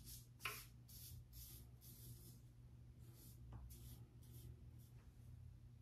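Blackland Blackbird stainless steel open-comb safety razor scraping across lathered stubble in short, faint strokes, about two a second, with a brief pause about halfway through.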